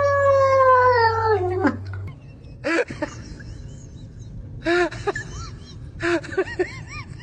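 A cat's long, drawn-out meow that slides slowly down in pitch, followed by several short rising-and-falling animal calls, some in quick runs.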